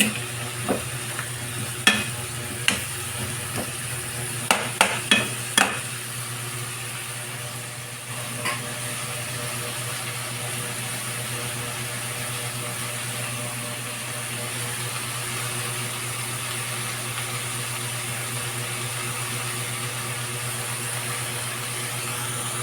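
Food sizzling in a hot pot while being stirred, with a utensil clicking against the pot several times in the first six seconds. After that the sizzle runs on steadily on its own over a low hum.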